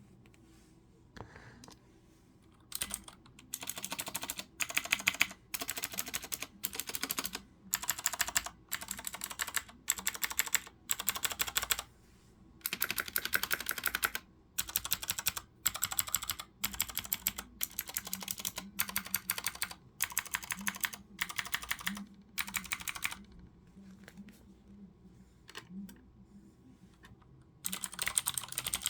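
Typing on a Ducky Shine 4 mechanical keyboard with clicky Cherry MX Blue switches, keys clacking in quick runs of strokes with short pauses between them. The typing starts a few seconds in, pauses for several seconds, then resumes near the end.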